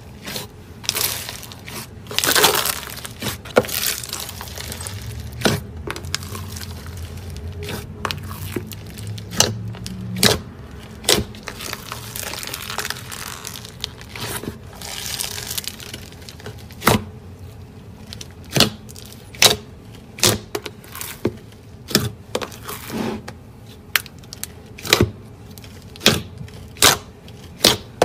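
Hands squishing and pressing slime packed with small foam beads (floam), making crunchy crackles. Through the second half come sharp pops, about one a second, as the slime is pressed and pulled.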